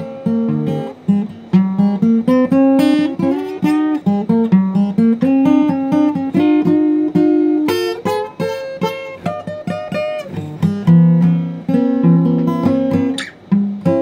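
Acoustic guitar playing a blues passage without vocals: a quick run of single picked notes mixed with short strummed chords.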